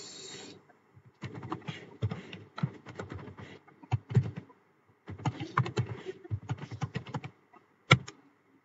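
Computer keyboard typing in two quick runs of keystrokes, then a single sharper click near the end.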